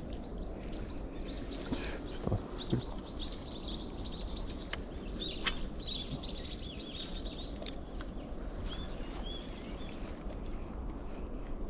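Small birds chirping and twittering in quick runs of high notes over a steady low background rumble, with a few short sharp clicks and knocks in the first half.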